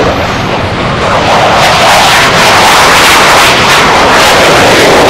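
Loud jet noise from an F/A-18 Super Hornet's twin engines on take-off and low climb-out, swelling about a second and a half in and staying loud with a rough, crackling edge.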